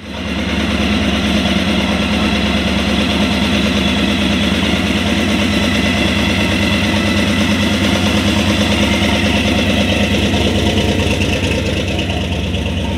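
Supercharged V8 of a 1969 Chevrolet Chevelle SS convertible running at low speed, a steady pulsing exhaust as the car creeps past, easing off slightly near the end as it moves away.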